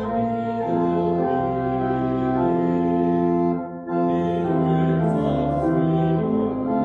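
Slow organ music playing sustained chords that change about once a second, with a brief break just before four seconds in.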